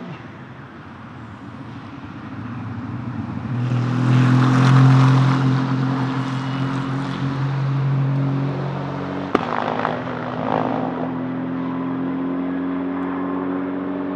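Aston Martin Vantage GT3 race car's Mercedes-AMG-derived 4.0-litre twin-turbo V8 coming past at racing speed, loudest about four to five seconds in, then pulling away. A sharp crack about nine seconds in marks an upshift.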